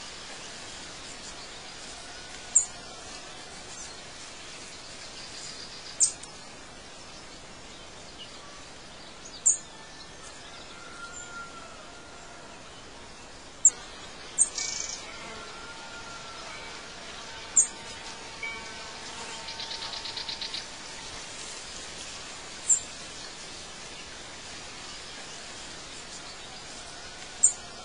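Birds chirping over a steady background hiss: short, sharp high chirps every few seconds, faint lower whistles, and a brief buzzing trill about two-thirds of the way through.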